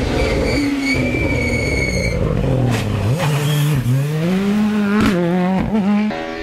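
Rally car passing close at speed. Its engine note falls, then climbs again as it accelerates past, with a few sharp pops along the way.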